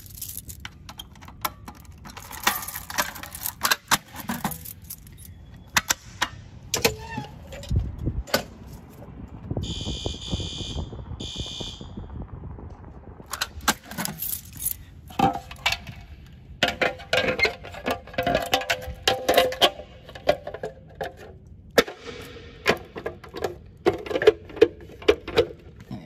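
A ring of keys jangling and clicking as a key is worked in the reset lock of a Notifier fire alarm pull station, with knocks and rattles from its clear plastic cover. About ten seconds in, a short high electronic beep sounds twice.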